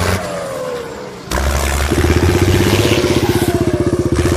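Small engine of a homemade mini tractor running under load while pulling a loaded trolley. It dips briefly, then grows louder about a second in, and settles into a rapid, even firing beat.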